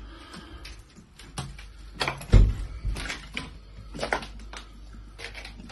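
Scattered knocks, clicks and clatter of movement and handling in a small room, with one heavy low thump about two and a half seconds in.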